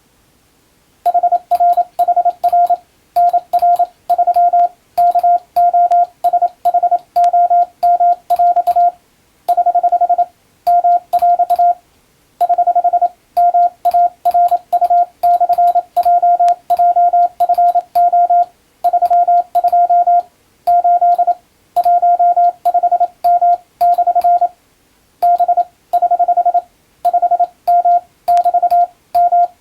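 Morse code (CW) sent as English text with an electronic keyer: one steady beep tone keyed on and off in quick dots and dashes, grouped into letters and words with short gaps. The keying starts about a second in, and each on and off carries a faint click.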